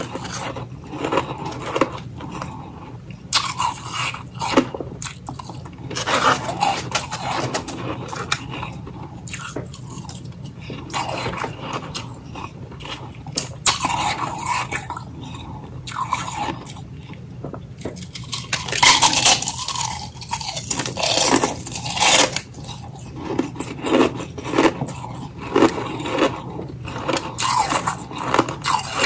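A person biting and chewing freezer frost and hollow ice, in irregular crunches throughout, with a dense run of loud crunches about two-thirds of the way through.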